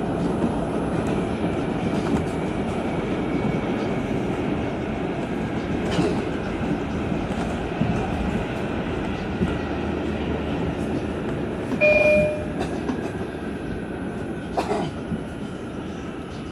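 R142 subway car running at speed, heard from inside the car with its air conditioning off: steady rumble of steel wheels on rail, with scattered clicks and knocks over rail joints. Late on, a brief loud high beep sounds once.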